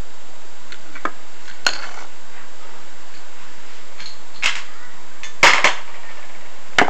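Handling noise: a few light clicks and taps as small plastic toys and toy furniture are moved about, with a small cluster of them about five and a half seconds in, over a steady hiss.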